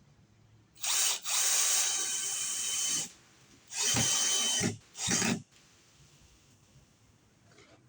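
Electric drill running in four short bursts, the longest about two seconds, with brief pauses between them.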